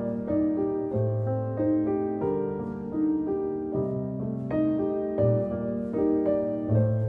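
Background music: a solo piano playing a steady flowing sequence of notes.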